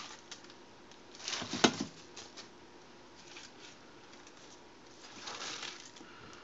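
Soft rustling of food and packaging being handled by hand, with one sharp knock about a second and a half in.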